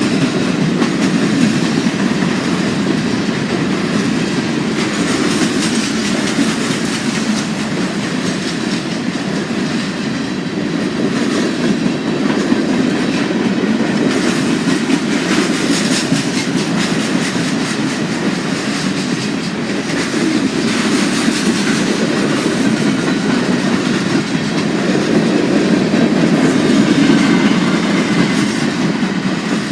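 Long freight train's cars rolling past at steady speed, a continuous rumble with the clickety-clack of wheels over the rail joints.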